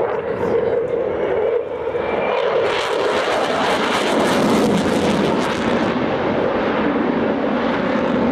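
Eurofighter Typhoon jet fighter's twin EJ200 turbofan engines, loud and continuous. A harsh crackle sets in about three seconds in and lasts about three seconds, and the drone falls in pitch in the second half.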